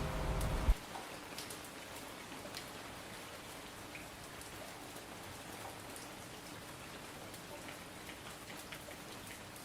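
Steady rain falling on a hard surface, an even hiss with individual drops ticking here and there. The last guitar chord of the song cuts off abruptly a little under a second in.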